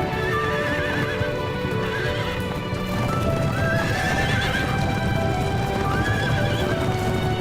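A herd of horses running, with a rumble of hoofbeats and several whinnies, over background music.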